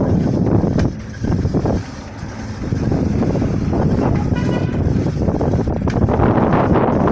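Engine and road noise of a moving vehicle, with wind buffeting the microphone, and a brief horn toot about four seconds in.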